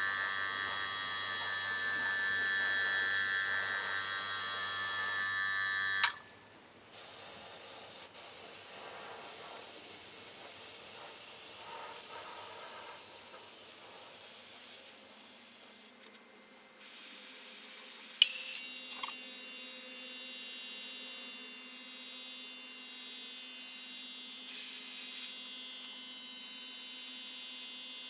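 Sealer being sprayed with compressed air: a steady spray hiss over the whine of a running compressor. The hiss and whine change abruptly a few times as the takes are cut together.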